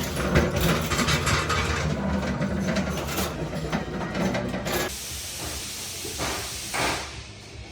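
A machine running with a steady low hum and loud hissing noise, which drops away sharply about five seconds in, leaving fainter hissing with one short burst near the end.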